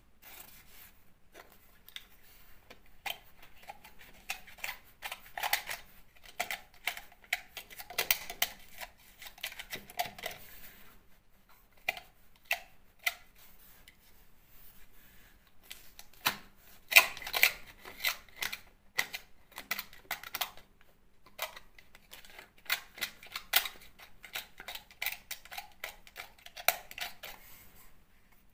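A hand tool scraping and digging loose, powdery plaster out of a wall corner by a window, in quick irregular scratches and clicks, with dense flurries about halfway through and again near the end. The plaster is crumbling because damp has drawn up into it.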